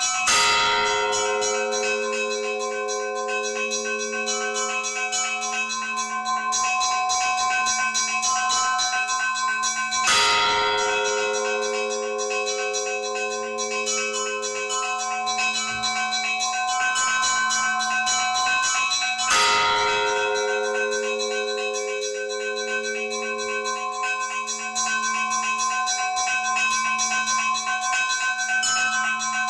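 Church bells ringing in a continuous peal: quick, dense patterns on the smaller bells over the steady hum of the large bells. A deep, heavy strike lands about every ten seconds, three times.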